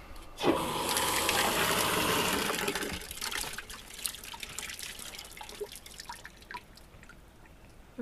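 Water gushing from an opened valve on a solar batch water heater's PVC outlet pipe for about two and a half seconds, drawn off to read its temperature. The flow then stops, and scattered drips follow.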